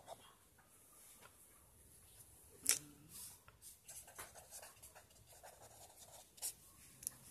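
Pen writing on paper: faint, irregular scratching strokes as a word is handwritten, with a sharp click a little under three seconds in and a smaller one near the end.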